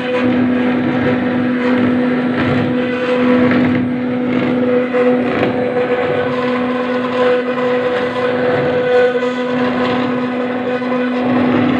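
CNC router spindle running with a steady whine while its bit cuts into granite, over a continuous rough grinding noise.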